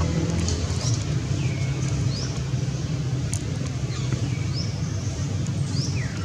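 A steady low rumble like engine or traffic noise, with short high chirps that sweep up or down in pitch, repeating roughly every half second to a second.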